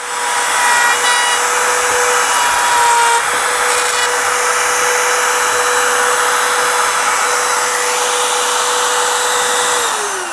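Makita 18V cordless brushless router starts up and runs steadily with a high whine while its bit cuts a hinge recess into the edge of a timber door. Near the end it is switched off, and its whine falls in pitch as it spins down.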